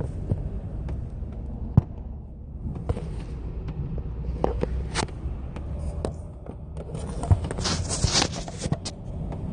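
A phone being handled and moved about inside a car: scattered knocks, clicks and rubbing over a low, steady cabin rumble, with a denser patch of scraping and rustling about eight seconds in.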